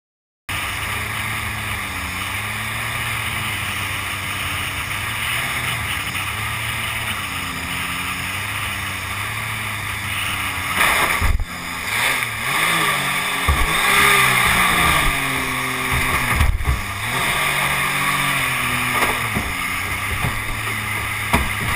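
Mini jet boat's engine running at speed, its pitch rising and falling as the throttle changes, over the rush of water and wind. It starts abruptly about half a second in, and a couple of sharp knocks come through midway.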